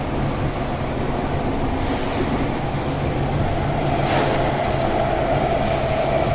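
Athens Metro Line 2 train heard from inside the car: a steady rumble and hum of wheels on rails, with two short hissing scrapes about two and four seconds in. The running noise grows a little louder towards the end as the train nears a station.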